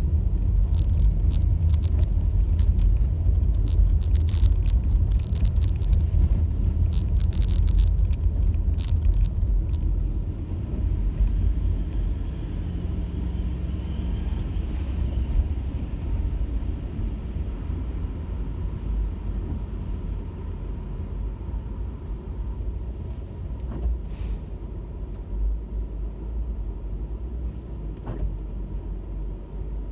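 Car driving, a steady low rumble of engine and road noise. Scattered sharp clicks and ticks come through the first third, then the rumble eases off a little.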